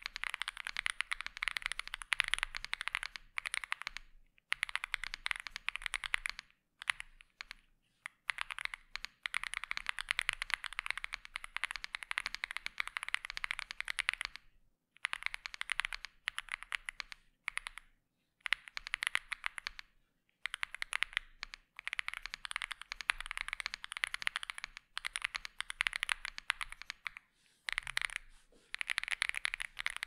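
Fast typing on a Womier SK65 aluminium, gasket-mounted mechanical keyboard with pre-lubed linear switches, PE, case and plate foam, and double-shot Cherry-profile keycaps. It makes a dense run of keystroke clicks, broken by brief pauses every few seconds.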